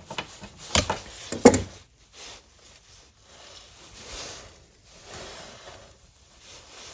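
Clicks and clacks of a mini battery chainsaw's bar and chain being handled and fitted back onto the saw: two sharp clacks within the first second and a half, then quieter scraping and rattling.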